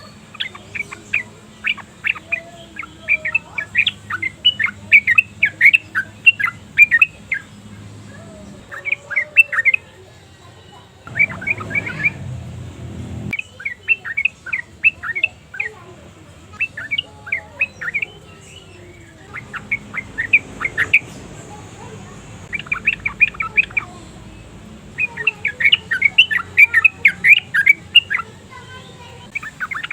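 Yellow-vented bulbul singing in repeated bursts of quick, bubbly chattering notes, each run lasting a few seconds with short pauses between.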